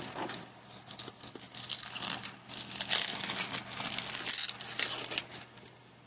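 Crinkly packaging of a new phone box being handled and unwrapped, a dense crackling and rustling that stops about five and a half seconds in.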